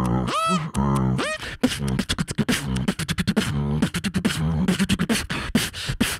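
Solo beatboxing through a microphone and PA: at first rising vocal swoops alternate with deep bass hums, then from about a second and a half in comes a fast, dense run of clicks and snare sounds over bass tones.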